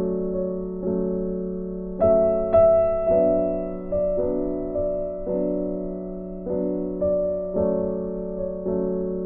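Background music: a slow, gentle piano piece, notes and chords struck roughly once a second and left to fade.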